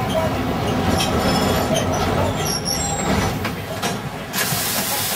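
Old-style electric tram running on street rails: a steady low rumble with scattered clicks and clatter. A loud hiss starts about four seconds in and carries on.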